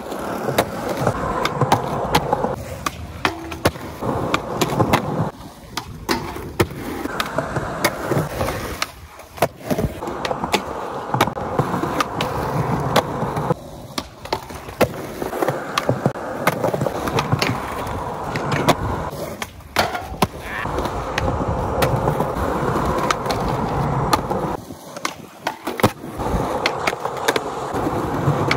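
Skateboard wheels rolling over rough concrete, with repeated sharp clacks of the board hitting the ground. The rolling drops out briefly a few times.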